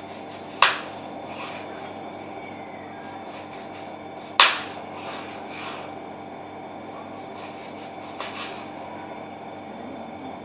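Kitchen knife cutting a raw green mango on a plastic cutting board: two sharp knocks of the blade meeting the board, about four seconds apart, with a few softer taps between. A steady high-pitched whine runs underneath.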